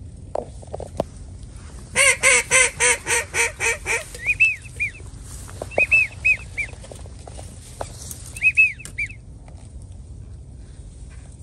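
A duck call blown in a quick run of about eight loud quacks, followed by three short groups of high whistle notes, two or three notes each.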